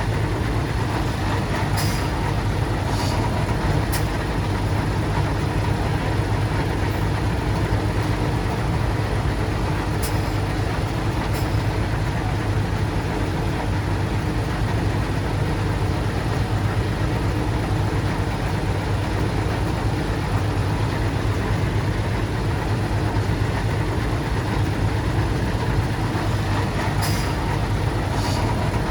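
Heavy diesel engine of a bulldozer running steadily under load, with a strong low hum and a few faint clicks.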